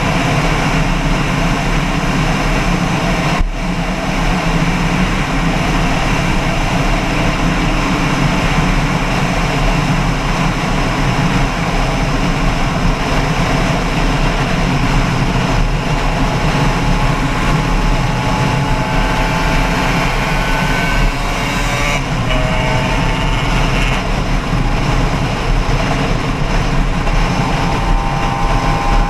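A vehicle's engine running steadily under a loud, even rushing noise. There is a brief dropout about three and a half seconds in.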